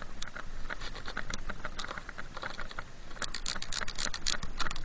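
Crunching and crackling of deep snow, with rustling of clothing, as a gloved hand and the snowboard shift in powder. The crackles come thinly at first, then in a dense run about three seconds in.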